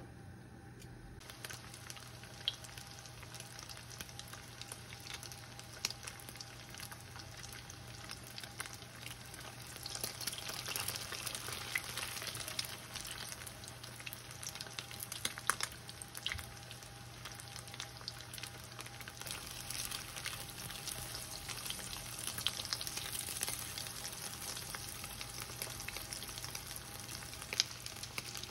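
Breaded pork cutlets shallow-frying in hot oil in a nonstick frying pan: a steady crackling sizzle with scattered sharp pops. It starts about a second in and grows louder about ten seconds in.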